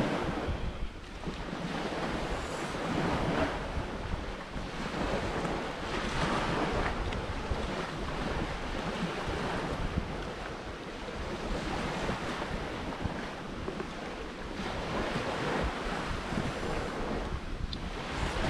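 Sea waves breaking and washing up the shore, swelling and easing every few seconds, with wind buffeting the microphone.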